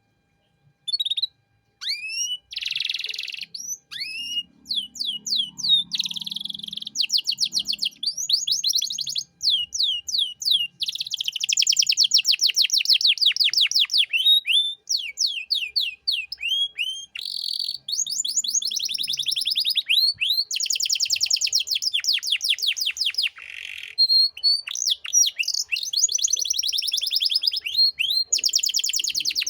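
Canary singing a long, varied song of fast trills of rapidly repeated notes and rising whistled sweeps, with short pauses between phrases; it starts about two seconds in.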